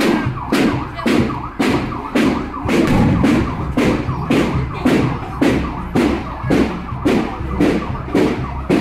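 Procession drums and cymbals beating a steady march rhythm, about two strokes a second.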